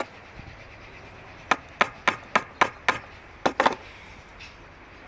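A hammer striking a wood chisel that is cutting a hinge recess into the edge of a wooden board. There is one knock at the start, then a quick run of six blows at about three a second, and after a short pause two more close together.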